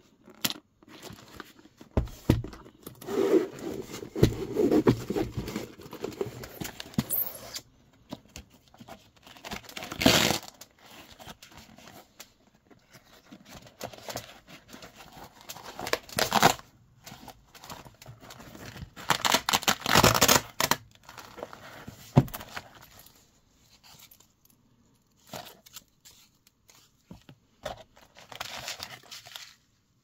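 Zipper of a hard-shell case being run open, then several short rips as velcro-backed flex panels inside are pulled loose, with some crinkling of a small packet.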